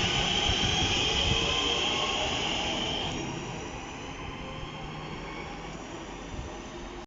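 Train running, with a high whine over a low rumble; the whine stops about three seconds in and the whole sound fades to a lower steady rumble.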